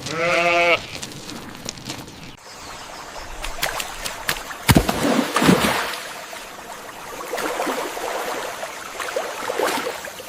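A bleating call from a farm animal, one short call right at the start, followed by scattered clicks and rustling noise, with a louder burst of sound about five seconds in.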